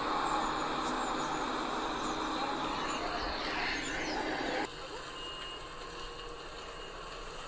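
Dell XPS 17 laptop's built-in speakers playing the soundtrack of a city travel video at high volume: a steady wash of noise with faint steady tones. It drops suddenly to a quieter level about two-thirds of the way through, as the video cuts to a new scene.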